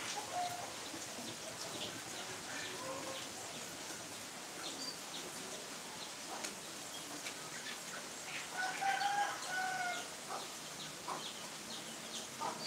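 A rooster crows once, a flat call of about a second and a half, about nine seconds in; shorter chicken calls come earlier. Behind it is a faint steady hiss with scattered small ticks.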